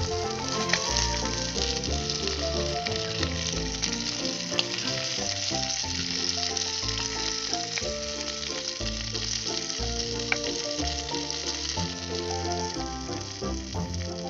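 Chicken pieces sizzling steadily as they fry in oil on a small tawa, a flat griddle, with background music over it and three brief clicks.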